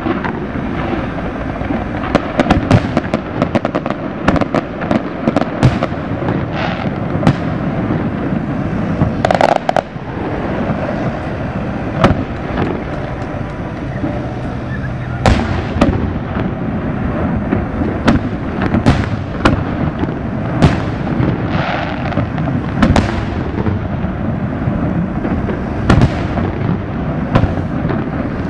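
Aerial firework shells bursting in a dense run of booms and sharp cracks, several every few seconds, over a continuous background din.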